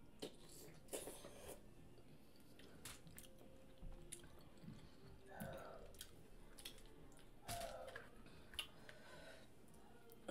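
Faint close-up chewing of a seafood boil, with scattered small wet smacks and clicks of the mouth.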